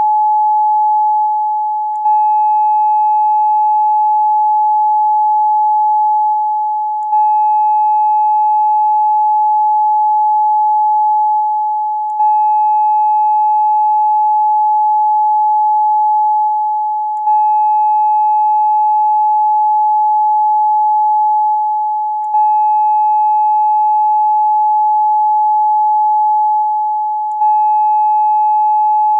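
Steady 852 Hz sine tone, the solfeggio frequency used for chakra meditation, with faint overtones. It loops about every five seconds, dipping slightly in level and restarting with a faint click each time.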